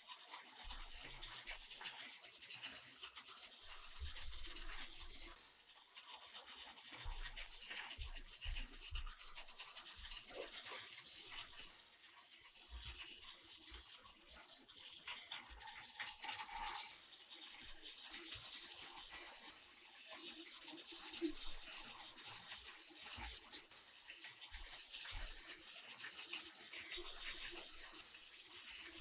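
Battery-powered toy train running along plastic track, its small motor and gears whirring steadily, with scattered low knocks.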